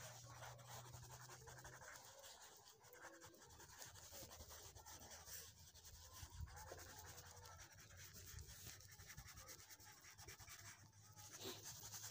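Faint, scratchy rubbing of a coloured pencil stroked rapidly back and forth on paper, shading in a drawing.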